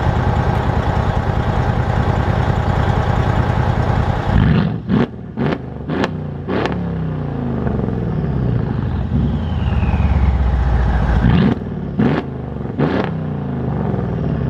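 Mercedes-Benz ML550's twin-turbo V8, muffler and resonator deleted, held at high revs for about four seconds, then blipped quickly four times. It drops back to a low idle and is blipped three more times near the end. A falling turbo whine follows each time the throttle is let off.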